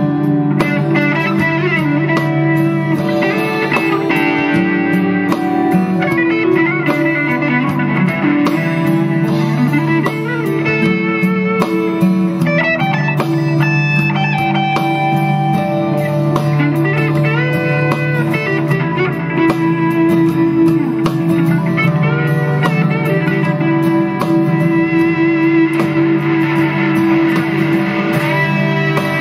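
PRS Singlecut Trem electric guitar played through Skreddy Screwdriver and Cusack Screamer pedals into a Dr. Z amp: a steady run of held notes and single-note lines with string bends.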